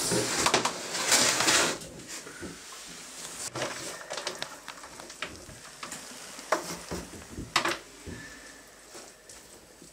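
Chopped meat and onion filling scraped and tipped out of a metal basin into a plastic basin, a loud rushing clatter for the first couple of seconds, followed by scattered soft knocks and rustles as a hand mixes the filling in the basin.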